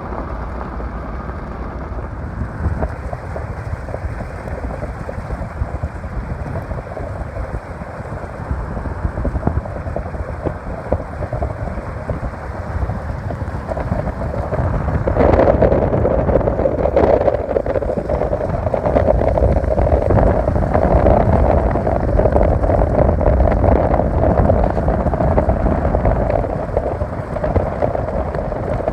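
Steady rush of flooding spring runoff water, with wind buffeting the microphone and a low rumble. The rush grows louder about halfway through.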